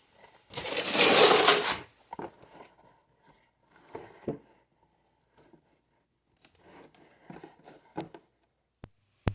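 Hand tools and parts being handled: a loud rattling scrape lasting just over a second, starting about half a second in. It is followed by scattered light clicks and knocks, and a sharp click near the end.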